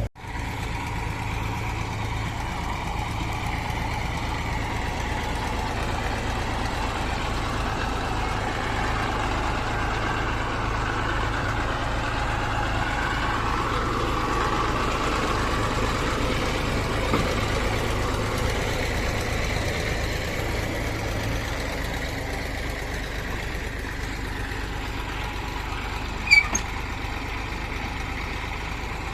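Heavy diesel machinery engine running steadily, working a little harder for several seconds midway, with one short sharp knock about 26 seconds in.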